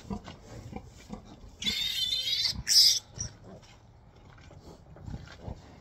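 Newborn piglet squealing as it is handled: a wavering high squeal about one and a half seconds in, then a shorter, louder shriek, with faint rustling and knocks around them.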